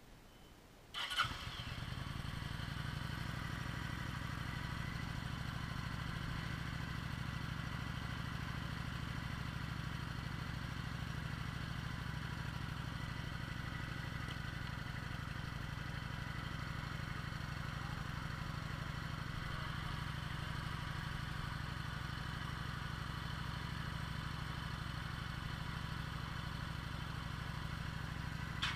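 Kawasaki Vulcan 900's V-twin engine starts with a short burst about a second in, then idles steadily.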